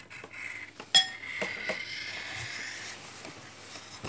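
Pencil scratching back and forth on paper, with a single sharp ringing clink about a second in.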